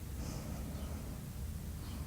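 A sleeping person's heavy breathing between snores, with a short breathy hiss about a quarter second in.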